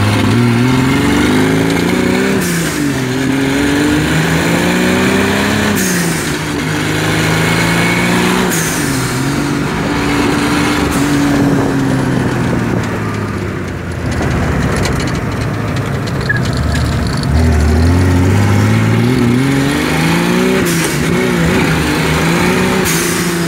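Turbocharged Chevrolet Chevette four-cylinder engine heard from inside the cabin, accelerating hard through the gears. The engine note climbs steeply and drops back at each gear change, about every three seconds, with a brief hiss at each change. About halfway through it eases off and falls for a few seconds, then climbs through the gears again.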